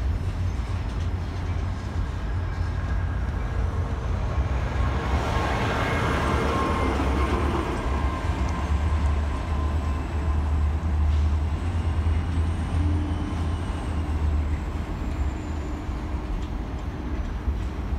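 Double-stack container well cars of a freight train rolling past on the rails: a steady low rumble with steel-wheel noise, swelling briefly about five to eight seconds in.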